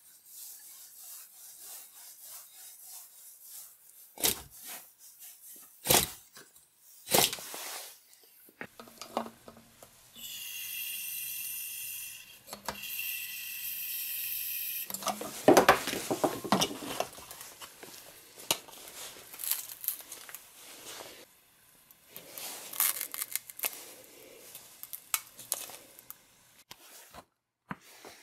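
Plastic parts of a small 3D-printed engine clicking and knocking as it is handled. Then a butane refill can hisses with a whistling tone for about five seconds while it fills a plastic bottle through a cap valve, followed by loud clattering and knocks as the bottle and fittings are handled.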